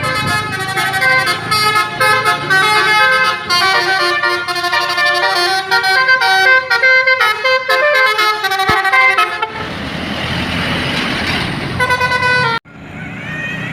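Basuri telolet bus horn playing a quick multi-note tune. After about nine and a half seconds it gives way to a rushing noise with a few more horn notes, and it cuts off abruptly near the end.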